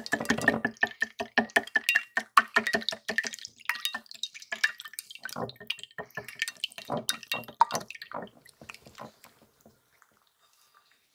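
A utensil tapping and clinking against a dish in quick, uneven succession, loudest for the first few seconds, then thinning out and stopping about eight seconds in.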